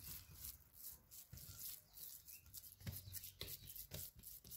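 Hands rolling and pressing a ball of coarse semolina dough on a plate: faint rubbing with a few soft pats, one a little louder near the middle.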